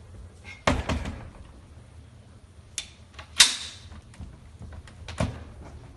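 Four sharp knocks and clacks a second or two apart, the loudest about three and a half seconds in, with a short hiss trailing it.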